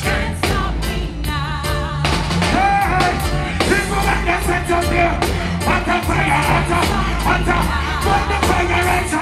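Live reggae band playing, with heavy bass and drums under a male lead vocal singing into a microphone.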